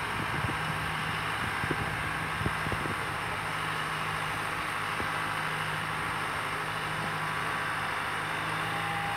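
Boat travel lift's engine running steadily, with a few light knocks in the first three seconds.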